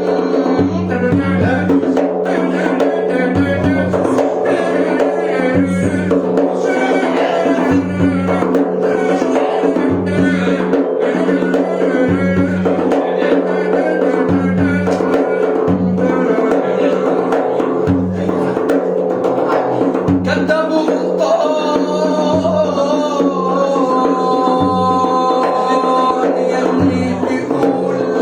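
Music with a steady beat: a held low drone under bass notes repeating about once a second, with a wavering melody line above. About two-thirds of the way through, held steady keyboard-like notes come in.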